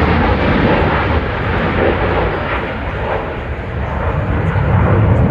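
A fighter jet flying low overhead, its engine noise loud and steady.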